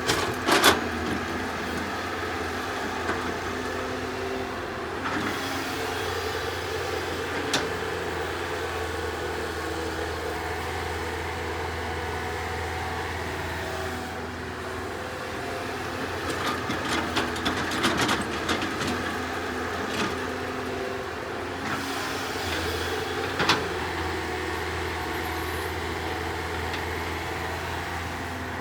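Sumitomo S265EA excavator's diesel engine running steadily under working load, with occasional sharp knocks and clatter from the machine at work, a cluster of them a little past the middle.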